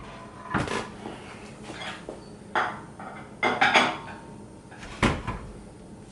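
Metal parts clanking: a handful of separate knocks and clinks spread out, with the loudest near the end.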